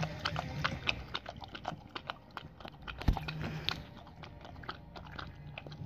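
A dog licking and smacking at peanut butter on a spoon held in its metal water bowl: quick, irregular wet clicks, with one sharper knock about three seconds in.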